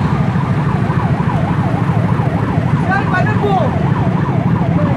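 Emergency vehicle siren wailing, its pitch sweeping up and down about two and a half times a second, over the steady low rumble of motorcycle and car engines in slow traffic.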